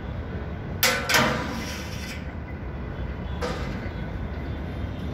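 Metalwork on a steel angle-iron billboard frame: two sharp metallic bangs about a second in, the second ringing and scraping on for about a second, and a lighter one a little past the middle, over a steady low rumble of wind.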